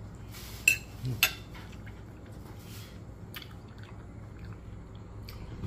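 Cutlery clicking sharply against a plate twice about a second in, then faint eating sounds, over a steady low hum.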